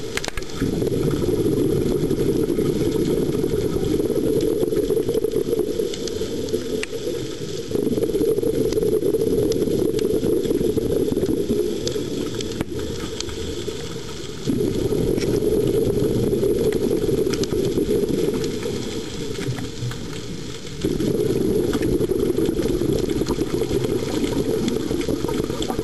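Underwater scuba-dive sound: a muffled low rush of regulator breathing and exhaled bubbles. It swells suddenly about every six to seven seconds, with each breath, then fades, and a few faint clicks are scattered through it.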